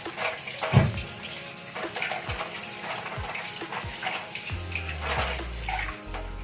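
Water running from a kitchen tap, with scattered knocks and clinks; the loudest knock comes about a second in.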